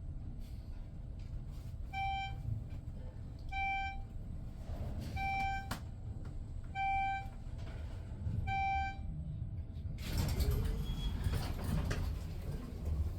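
An electronic beep repeating about every one and a half seconds over a steady low hum. From about ten seconds in, a louder rushing, clattering noise takes over.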